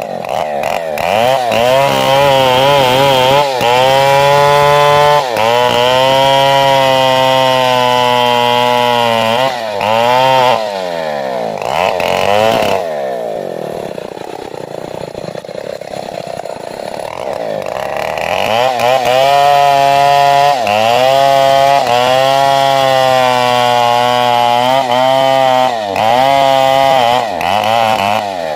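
Stihl 070 two-stroke chainsaw revved to full throttle and cutting into sengon wood, its pitch sagging and wavering under load. It drops back to lower revs for several seconds in the middle, then is run up again for a second long cut.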